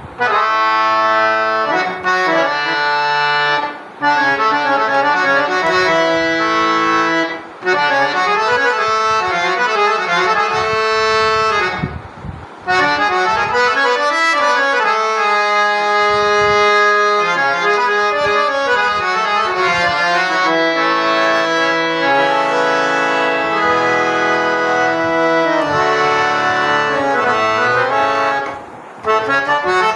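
Hand-pumped harmonium played in sustained reedy chords and melody phrases, with its bass reed set switched off. The playing breaks off briefly about four times.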